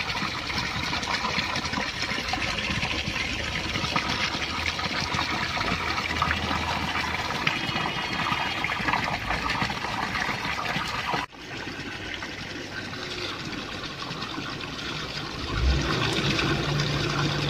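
Spring water pouring from a pipe spout and splashing onto rocks: a steady rush that cuts out for an instant about eleven seconds in, then goes on a little quieter.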